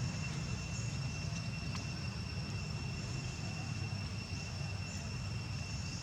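Steady outdoor background: a continuous high insect drone on two held pitches over a low rumble, with a few faint ticks.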